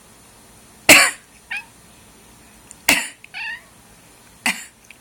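A cat coughing three times in sharp, loud hacks, the first two each followed by a short, higher pitched sound.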